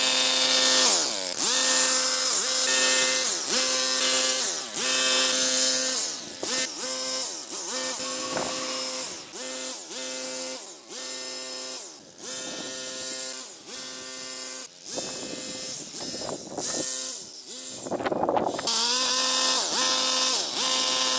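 Petrol hedge trimmer cutting a hedge, revved in repeated short bursts, its pitch falling off each time the throttle is released before it comes up again.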